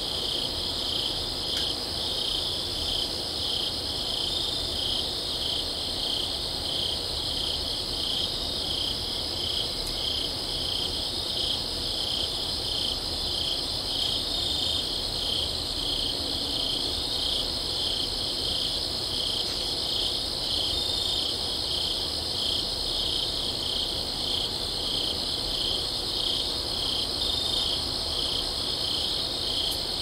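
A night chorus of insects: steady, high, cricket-like chirping with a regular pulse. No owl calls stand out.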